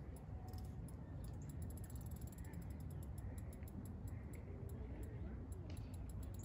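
Wind rumbling on the microphone, with scattered light clicks from a fishing reel as a hooked carp is played.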